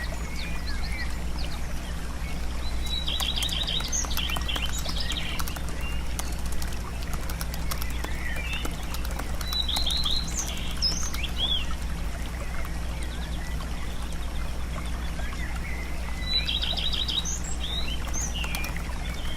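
Birds singing and chirping, with a short trilled phrase coming back about every six to seven seconds, over a steady low hum and scattered faint clicks.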